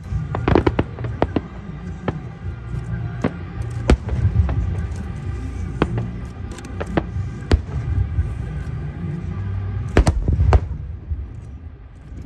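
Aerial fireworks bursting: sharp bangs at irregular intervals over a low rumble, with a dense cluster about a second in and another near the end.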